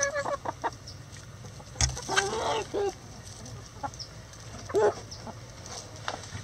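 Backyard chickens clucking, a few short calls spread out over several seconds, with one dull thump about two seconds in.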